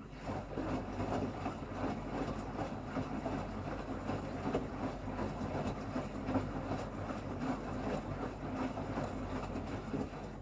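Beko bPRO500 washing machine drum turning with water in it during its calibration cycle: a steady motor hum under water sloshing and splashing in the drum. The sloshing stops at the very end.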